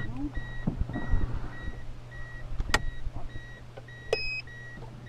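Steady electronic warning beep from equipment inside the van, repeating just under twice a second, over a constant low electrical hum. Handling thumps and a sharp click break in, and a short, higher beep sounds about four seconds in.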